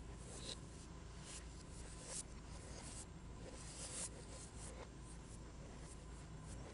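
Recording of rain played backwards: a steady hiss of rain with irregular swells that build up and then cut off sharply.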